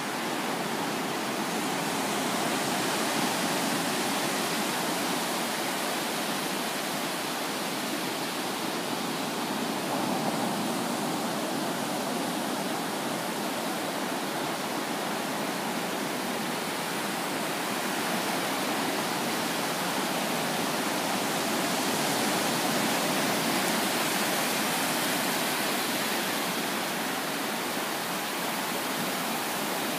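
Ocean surf: low waves breaking and washing up a flat sandy beach in a steady rush that swells and eases slowly.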